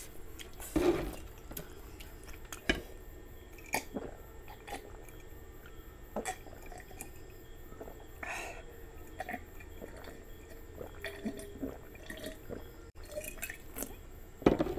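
A person drinking water from a glass mug, with wet swallowing and small mouth and glass clicks. Near the end there is a louder knock as the glass is brought down.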